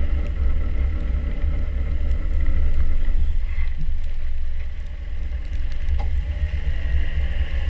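Land Rover Defender 90 driving on a trail: a steady low rumble of engine and drivetrain, dipping briefly in level about five seconds in.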